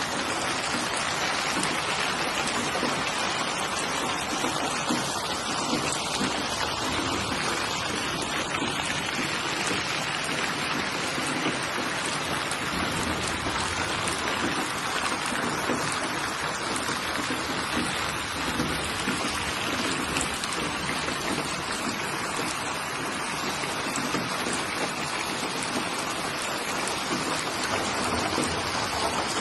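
Steady rain falling, a dense even hiss of drops on surfaces.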